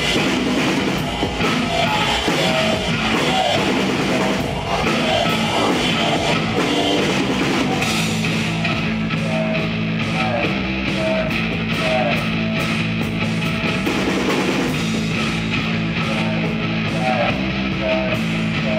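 Live rock band playing loud: electric guitar over a drum kit, a dense, continuous sound with low notes held steady from about halfway through.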